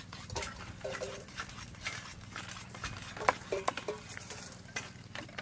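Irregular knocks and taps of kitchen knives and utensils against wooden chopping blocks and bowls during food preparation, with a quick cluster of sharper knocks a little past the middle. A low steady hum runs underneath.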